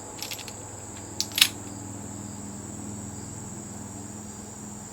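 Crickets chirring steadily with a high, even trill, with a few short sharp clicks in the first second and a half as the jammed gun's action is pulled back to clear it.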